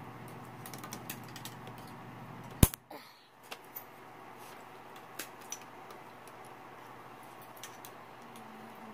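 Scissors snipping plastic parts off a model-kit sprue: scattered light clicks and one much louder sharp snap about two and a half seconds in.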